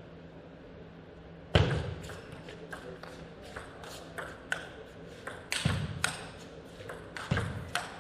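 Table tennis rally: the celluloid ball clicking off rackets and table in a quick, irregular run of sharp ticks. It starts about a second and a half in with a loud thud, and two more heavy thuds come later.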